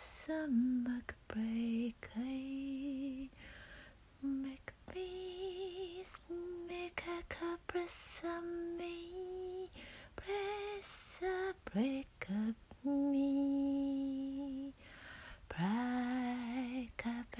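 A woman singing unaccompanied in improvised light language (invented syllables), soft and lullaby-like, in short phrases and held notes with vibrato and audible breaths between them. A long held note comes a little after the middle.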